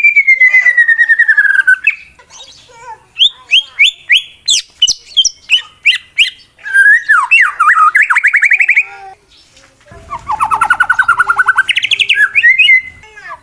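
White-rumped shama (murai batu) singing a challenging song of the kind used to provoke rival males: a falling whistled trill, then sharp rapid notes and fast trills, with a short pause about nine seconds in before another fast, rising trill.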